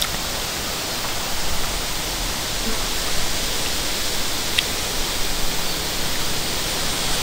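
A steady, even rushing hiss, with one faint click about four and a half seconds in.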